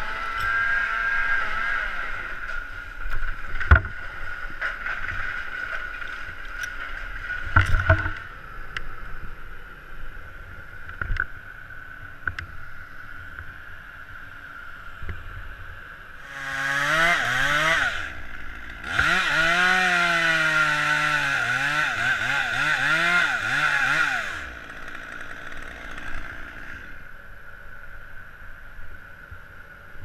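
A chainsaw revs briefly, then runs for about five seconds under load, its pitch wavering as it cuts through a dead limb. Before that comes a steady machine drone with two sharp knocks.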